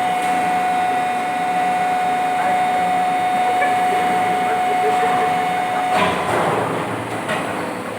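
Plastic injection moulding machinery running on a factory floor: a steady mechanical din with a continuous high whine that cuts off about six seconds in, followed by a short burst of hiss.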